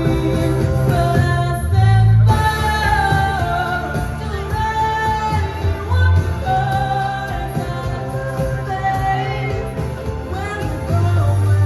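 A woman singing a pop ballad in long, held and gliding notes over a backing track with a heavy, steady bass line.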